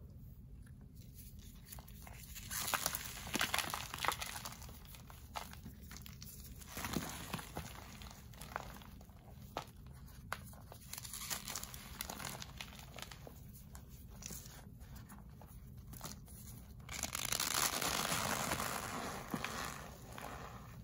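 Pressed gym chalk reforms being crushed and crumbled by hand into powder: irregular crunching and crackling with soft powdery rustles, over a steady low hum. A longer, louder run of crumbling comes shortly before the end.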